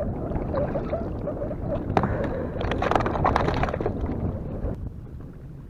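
Wind rumbling on the microphone, with a sharp click about two seconds in and a quick cluster of knocks and rattles around three seconds in.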